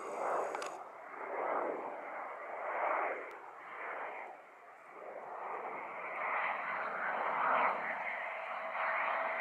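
Distant jet noise from a Eurofighter Typhoon's twin EJ200 turbofans on approach to land: a rushing sound that swells and fades in waves and grows louder, with a steady whine coming in over the second half.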